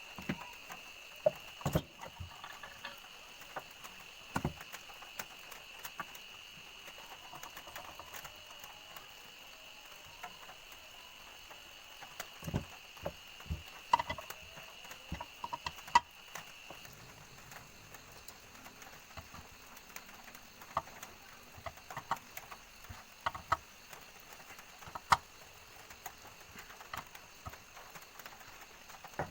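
Scattered light knocks and clicks at irregular intervals, a few sharper ones near the middle, over a faint steady high-pitched tone that stops a little past halfway.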